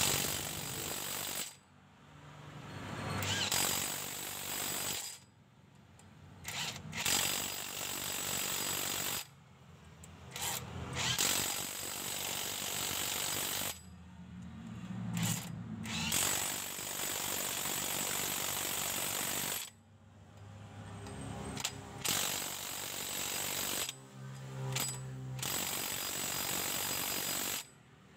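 An impact wrench hammers the flywheel bolts of a Toyota Avanza tight. It runs in about seven bursts of a few seconds each, with short pauses between them as it moves from bolt to bolt.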